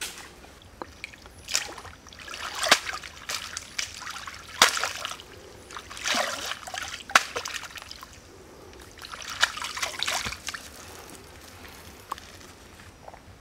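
A woven basket of water snakes swished and dipped in a stream, the water sloshing and splashing in repeated bursts, with a few sharp clicks between them.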